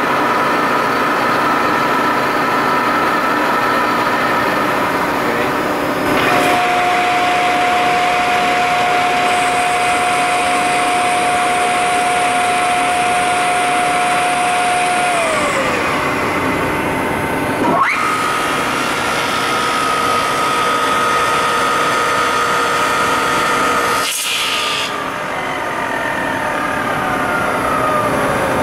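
Peddinghaus TDK 1000/3G three-spindle beam drill line running under power: a steady machine whine made of several held tones. One tone slides down in pitch about halfway through, and the sound changes abruptly twice later on, as drives speed up and slow down.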